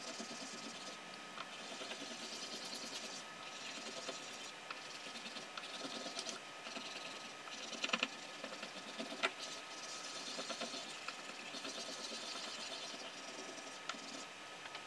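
Paper being rubbed by hand over an inked woodblock to transfer the print: a steady, quick scratchy rubbing, with a couple of sharper knocks about eight and nine seconds in.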